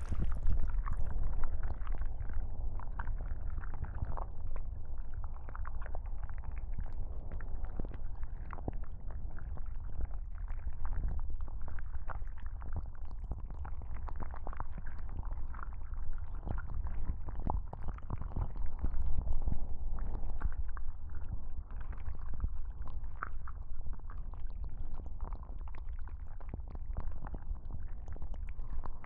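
Muffled, deep rumbling with small scattered clicks from slow pressure pressed over a binaural microphone: ASMR sound of tentacles squeezing the listener's head.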